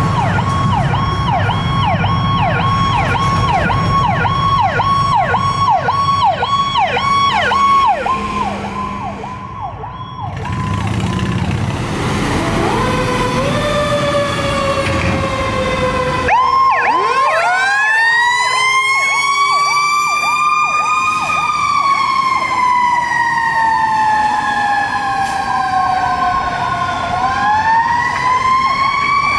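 Electronic emergency sirens (Powercall tones). First a fast yelp, about three sweeps a second, from an emergency vehicle. About ten seconds in it gives way to a fire ladder truck's siren winding up into a slow wail that rises and falls, with a second siren tone joining around sixteen seconds and yelping briefly over it.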